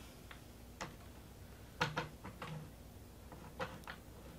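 Faint, scattered light clicks and knocks of tool handling as a brad nailer and bar clamps are positioned beneath a plywood panel, with no nail fired.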